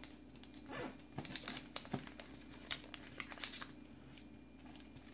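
Sheet of origami paper being folded and creased by hand: faint, scattered rustles and crinkles.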